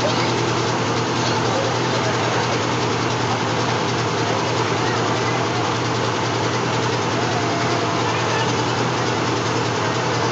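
Miniature zoo-train locomotive standing still with its engine idling: a steady, unchanging running sound.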